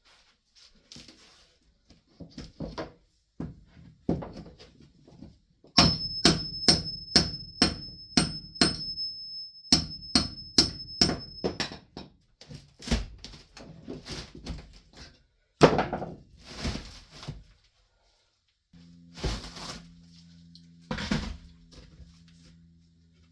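Hammering during subfloor repair work: scattered knocks, then two runs of quick, evenly spaced hammer blows with a high metallic ring, followed by a few heavier thuds. A low steady hum comes in near the end.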